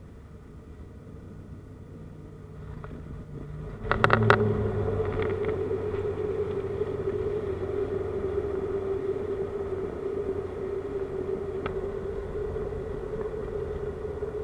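Turboprop airliner heard from inside the cabin: a steady engine drone, then about four seconds in a few sharp knocks and a sudden jump in loudness to a strong, steady propeller drone with a low rumble, typical of touchdown and the landing roll.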